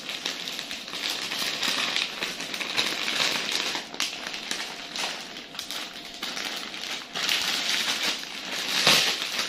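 Shiny gift wrap crinkling and rustling as it is pulled off a present and crumpled by hand. The rustle comes in uneven handfuls, with a sharper crackle about four seconds in and the loudest crunch near the end.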